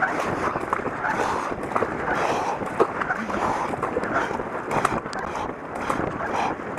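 Paddle blades of a K1 racing kayak dipping and pulling through river water in steady alternating strokes, with water splashing and rushing along the hull. Wind buffets the helmet-mounted camera's microphone.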